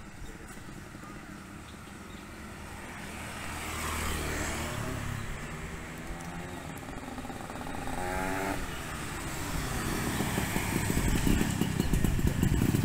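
Motorbikes passing on a road, their engine pitch gliding as each goes by. Near the end, a Yamaha V80 two-stroke moped fitted with a racing exhaust draws near and gets steadily louder.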